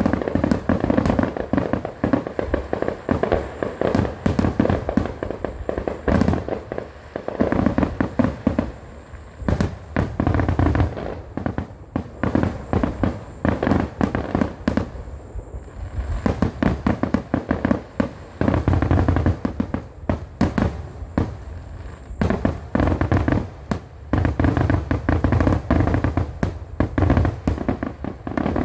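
A dense, continuous barrage of fireworks: rapid overlapping bangs and crackling from many bursts going off in quick succession. It thins out somewhat past the middle, then builds again toward the end.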